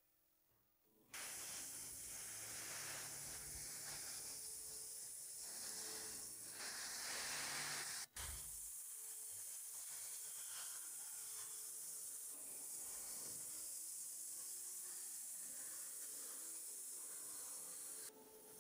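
Mountain waterfall pouring down a rock face into a pool: a steady rushing hiss of falling water. It starts about a second in and drops out for a moment about eight seconds in before going on.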